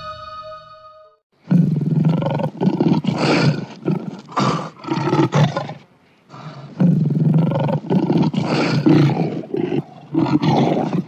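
A lion roaring: two long, rough roars, the first starting about a second and a half in and the second about seven seconds in.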